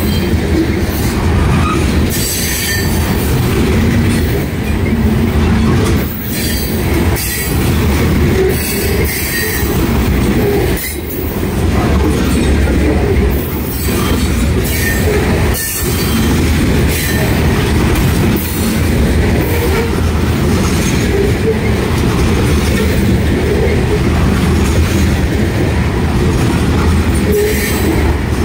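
Loaded covered hopper cars of a freight train rolling past close by at speed: a steady, loud rumble of steel wheels on the rails with irregular sharp clanks.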